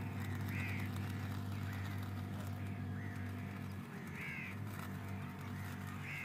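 Crows cawing repeatedly over a steady low hum.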